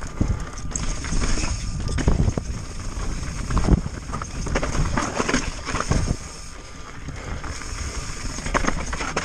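Pivot Firebird 29 full-suspension mountain bike riding down a rocky trail: tyres and frame knocking and clattering unevenly over rocks, the hardest hit a little under four seconds in, over wind rumble on the camera microphone.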